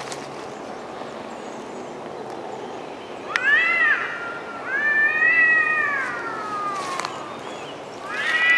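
Cat yowling, the drawn-out wailing of a cat-fight standoff: three long calls starting about three seconds in, the middle one longest and sliding down in pitch at its end, the last rising to the loudest point at the end.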